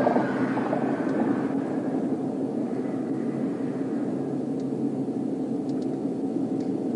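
Steady low rumble of vehicles on a highway, with no break in it.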